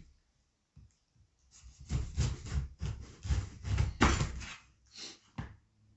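Kitchen knife slicing through a whole pineapple on a board: a run of short cutting knocks and thumps against the board, starting about a second and a half in and ending a little before the end.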